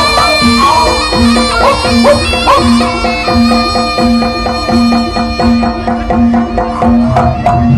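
Jaranan ensemble music, loud: a slompret (Javanese shawm) plays a wavering, bending melody over drums and gongs keeping a steady quick beat. The melody settles into steadier held notes after the first few seconds.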